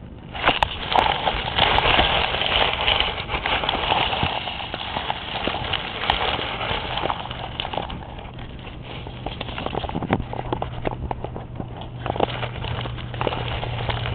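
Dense rustling and crackling of grass and handling noise against the microphone as the camera is moved through grass at ground level, with many irregular clicks. A low steady hum comes in about halfway through and grows louder near the end.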